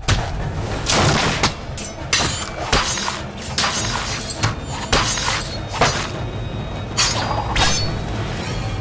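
Fight-scene sound effects: a quick series of about a dozen sharp hits and impacts over background music.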